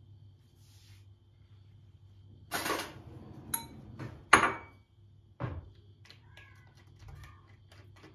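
Kitchen handling sounds: a cloth towel rustling as it is pulled back, then a sharp metallic clank with a short ring as the stainless steel pot's lid is handled, the loudest sound, about four seconds in. After a knock come a run of light clicks and faint squeaks from a spoon, a bowl and a plastic container.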